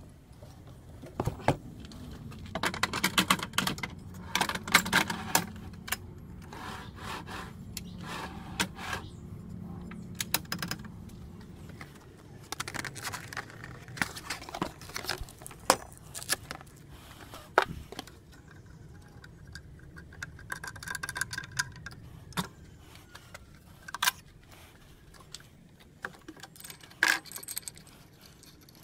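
Hard plastic and metal parts of a tile saw being handled and fitted together: irregular clicks, knocks and rattles, with a few stretches of busier clattering.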